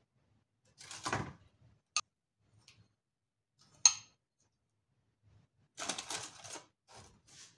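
Metal spoon scraping and tapping against a ceramic bowl as dough balls are rolled in a sugar coating, with two sharp clinks about two and four seconds in. Near the end, a longer scraping rustle as a coated ball is set into a pan lined with baking paper.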